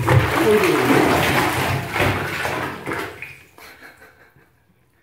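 Shower water spraying onto a wet cat and splashing in a bathtub, dying away after about three seconds.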